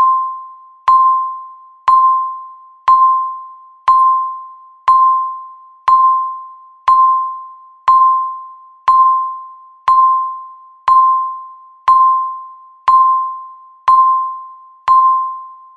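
Countdown timer beeping once a second, counting down the final seconds: a single mid-pitched electronic beep with a sharp start that fades away before the next, about sixteen beeps in a row.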